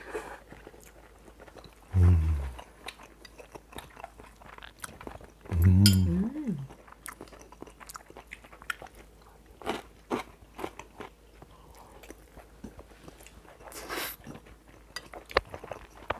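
Close-up chewing of sea cucumber rice, the crunchy pieces of sea cucumber making many small crunches between the teeth. Two short, low voiced hums of enjoyment come about 2 and 6 seconds in.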